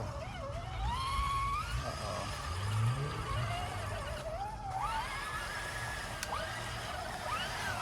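Axial Bomber RC rock crawler's electric motor whining, its pitch rising and falling in long glides as the throttle is worked.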